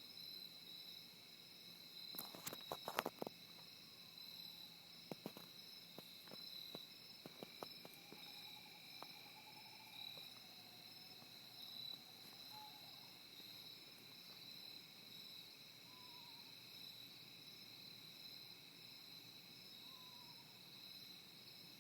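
Faint insect chorus of steady high-pitched trills, with a few sharp clicks a few seconds in and a faint wavering tone in the middle, followed by two short gliding notes.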